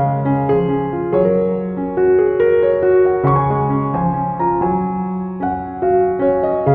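Background music: a gentle piano tune of steady melodic notes over held bass notes.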